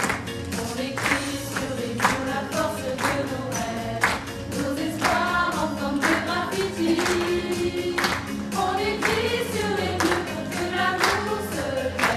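Amateur vocal group of women and children singing together, with a steady beat of sharp strokes about twice a second.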